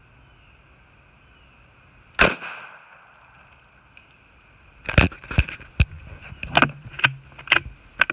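.17 HMR rifle shot about two seconds in, a sharp crack that echoes briefly. From about five seconds in comes a quick run of about seven more sharp cracks, roughly half a second apart.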